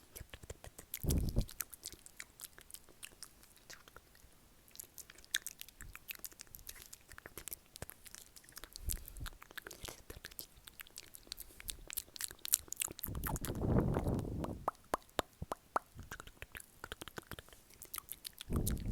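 Close-miked ASMR mouth sounds: many quick wet clicks and smacks of lips and tongue. A few short, low breathy sounds fall between them, the longest a little past the middle.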